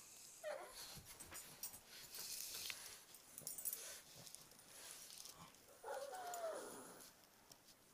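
Pug giving short vocal calls: a brief one about half a second in, and a longer one about six seconds in that rises and then falls in pitch, amid faint shuffling and clicks on the bedding.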